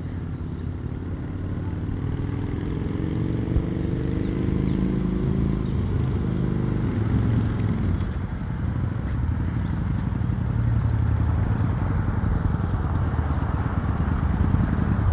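Cruiser motorcycle engine approaching and growing steadily louder. Its note rises as it accelerates, then drops about eight seconds in.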